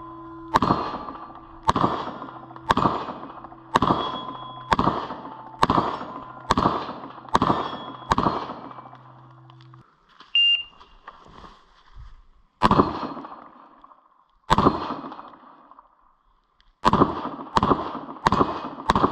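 Glock 19 9 mm pistol shots outdoors: a string of nine about a second apart, a pause, two more spaced about two seconds apart, then four quick shots near the end, each followed by a short echo.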